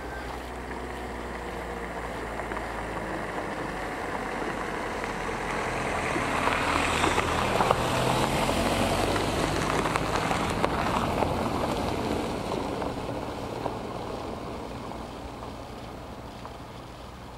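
A motor vehicle's engine passing by, growing louder to a peak about eight seconds in and then slowly fading away.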